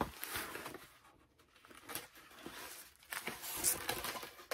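Rustling and crinkling of packaging being handled and unpacked by hand, in several short, irregular bursts.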